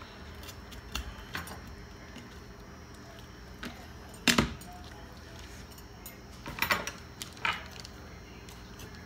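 Kitchen knife cutting a raw turkey wing, tapping and knocking against a plastic cutting board: a few scattered sharp knocks, the loudest about four seconds in and a short cluster near seven seconds.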